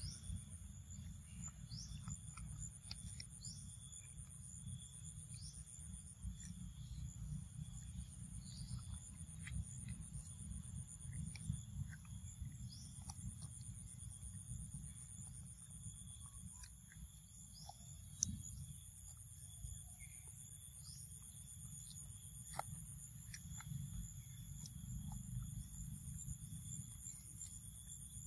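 Steady chorus of forest insects: several continuous high-pitched trills and buzzes held at a constant pitch, over a low rumble, with scattered faint clicks and a few short chirps.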